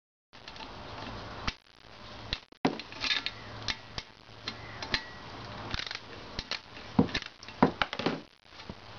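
Ratchet socket wrench clicking in short runs and steel tools clinking as galvanized bolts and nuts are undone on a wood stove door, the nuts turning freely without seizing. A few sharper knocks near the end.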